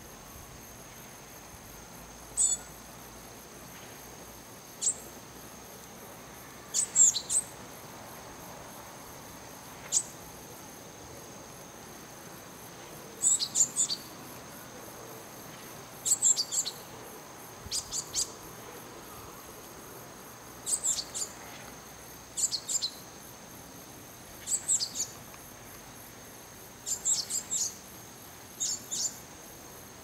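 Japanese tit singing: high, clear notes, single at first, then short phrases of two to four notes repeated every couple of seconds. A steady high-pitched whine runs underneath.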